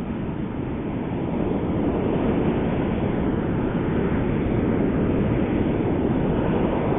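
Ocean surf breaking and washing up the beach: a steady rushing noise that builds over the first couple of seconds and then holds.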